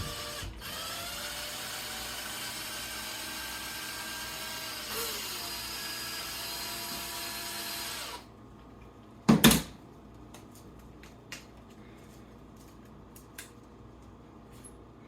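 Cordless drill/driver running for about eight seconds as it works a small screw in an RC truck's plastic bulkhead, its pitch dipping once midway, then stopping. A loud thump comes about a second later, followed by a few light clicks.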